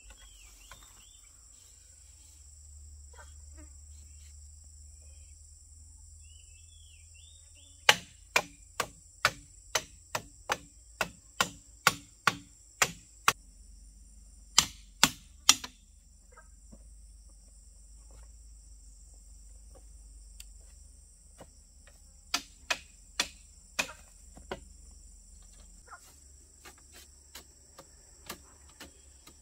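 Hammer blows on bamboo in runs of sharp knocks: about a dozen at roughly two a second, then three, then about five more, as the slat fence is fastened. Under them is a steady high insect drone of crickets or cicadas.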